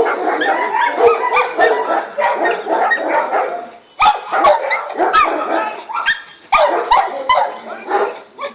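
Dog barking and yipping in quick, excited runs of short calls, with brief breaks about four and about eight seconds in.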